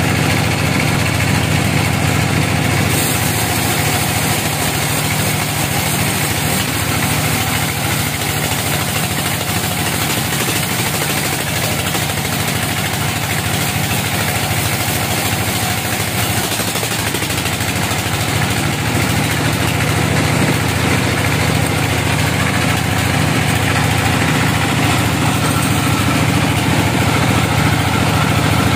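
Sawmill band saw and its drive engine running steadily, a loud continuous mechanical hum with a low drone, as the blade saws a teak log on the log carriage.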